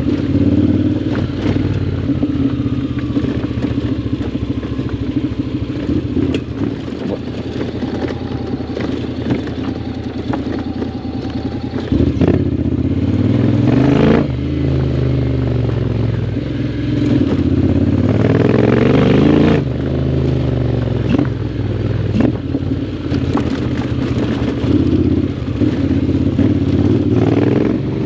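Honda X-ADV 750's parallel-twin engine through a full Akrapovic exhaust, riding along. Its pitch rises and falls with the throttle, with two louder pulls that climb and then drop back, one about halfway through and one about two-thirds in.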